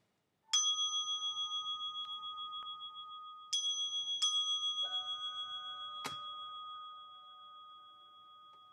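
A bell-like metal chime instrument is struck several times. The first stroke comes about half a second in, more follow about three, four and five seconds in (the last one lower), and a sharp tap comes about six seconds in. The tones ring on together with a slow wavering shimmer and gradually fade.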